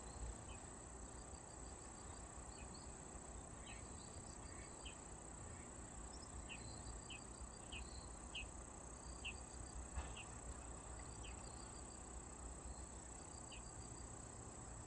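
Mandarin duck giving short, high-pitched chirps that sound like hiccups, about a dozen at irregular intervals with a quicker run around the middle. A steady high insect drone, like crickets, runs underneath.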